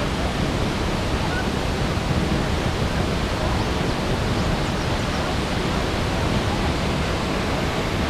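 A tall waterfall and the white-water rapids below it, rushing in one even, unbroken noise.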